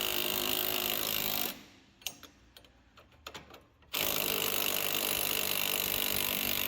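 Power tool running in two long bursts, with a pause of about two and a half seconds between them that holds only a few light clicks.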